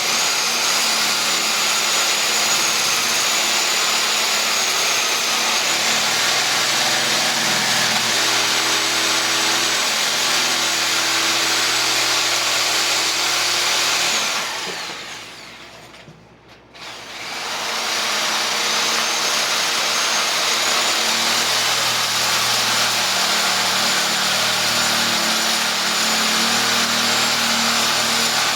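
Sawzall (reciprocating saw) running steadily while shaving wood to carve a shape, with a thin motor whine. About 14 s in it is let off and winds down, then it starts up again a couple of seconds later and runs on.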